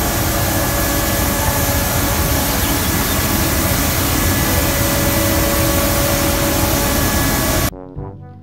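Truck-mounted road sweeper running with its brushes down: a loud, steady rushing hiss with faint hum tones. It cuts off suddenly near the end.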